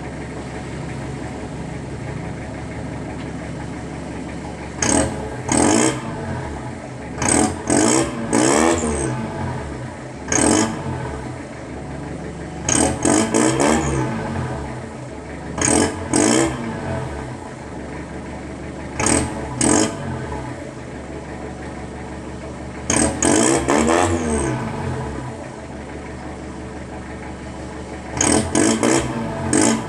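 Toyota Hilux Mighty-X pickup's aftermarket exhaust, with a Mitsubishi middle silencer and titanium tip, idling steadily between repeated quick throttle blips. The revs come in short bursts, singly or two or three in a row, about every two to four seconds.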